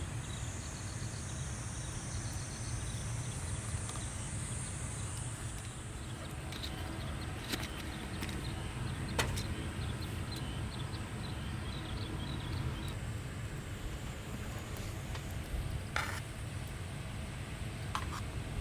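Outdoor campsite ambience: a steady low rumble under high, continuous insect chirping, with a few sharp clicks scattered through.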